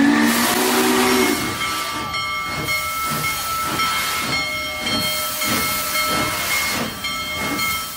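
Steam locomotive sound effect: the whistle sounds briefly at the start, then a loud hiss of escaping steam with rhythmic chuffing, fading out near the end.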